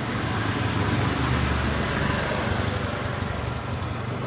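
Steady low rumble and noise of road traffic, a little louder between about one and three seconds in.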